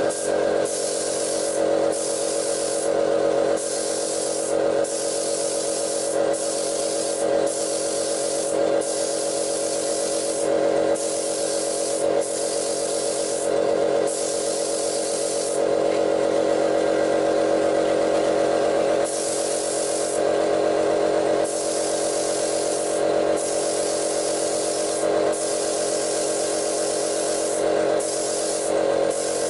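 Air spray gun hissing as it sprays primer, cut by many brief pauses as the trigger is let off and pulled again, over the steady hum of an air compressor running.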